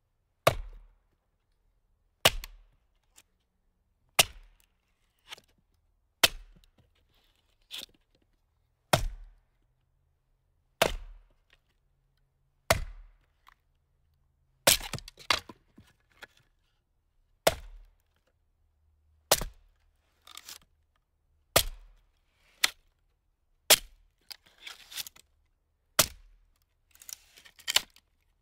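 A series of sharp, cracking impacts, about one every two seconds, some followed by a few smaller clattering hits.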